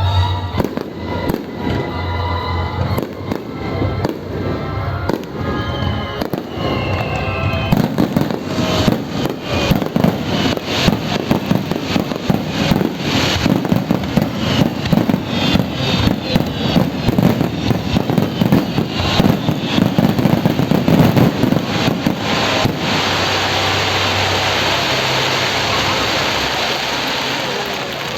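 Fireworks display: shells bursting with music playing for the first several seconds, then a rapid barrage of bangs and crackles for about fifteen seconds, giving way to a steady rush of noise near the end.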